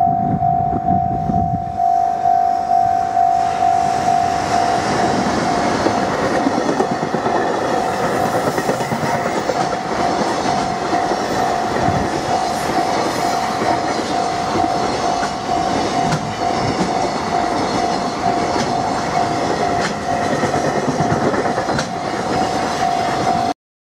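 EF210 electric locomotive passing at the head of a long container freight train, the wagons' wheels clattering over the rail joints, with a steady, slightly pulsing high tone throughout. The sound cuts off abruptly just before the end.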